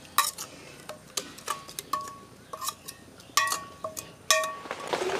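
A metal utensil clinking and scraping against a steel cooking vessel about eight times at an irregular pace, each clink ringing briefly, as ground masala paste is scraped out into the pot of curry. Near the end a soft bubbling hiss rises as the curry heats.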